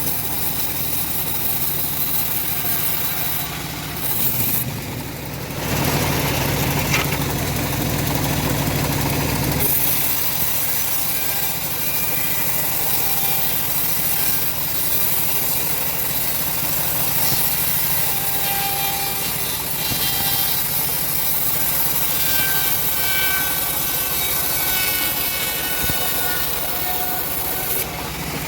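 Homemade engine-driven bandsaw mill cutting lengthwise through a semi-dry teak log: steady sawing noise over the running engine, with a short dip about five seconds in and a faint whine later on.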